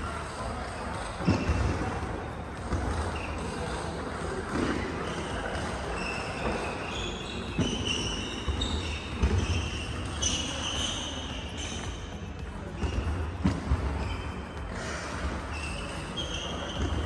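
Ambient sound of a large sports hall: scattered sharp knocks and short high squeaks over a low rumble.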